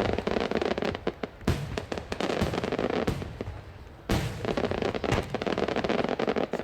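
Aerial firework shells bursting in quick succession: sharp booms, strong ones about a second and a half in and again about four seconds in, over dense runs of crackling bursts.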